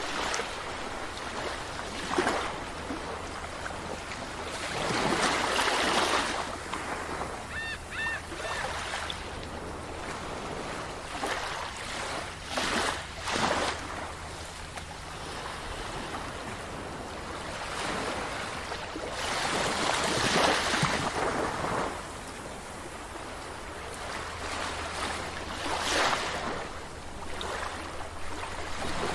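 Sea waves breaking on a beach and washing back, one surge every several seconds. About eight seconds in, a gull gives a few short calls.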